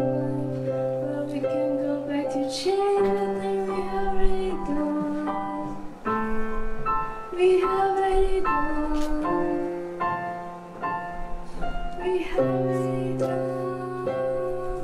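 Piano playing a slow run of held chords, with a young female voice singing over it.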